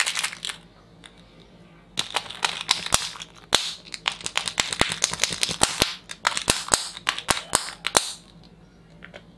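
Crinkly plastic wrapper of a Kinder Joy egg being handled and torn open, a rapid run of sharp crackles. There is a short burst at the start, then a longer crackling stretch from about two seconds in to about eight seconds.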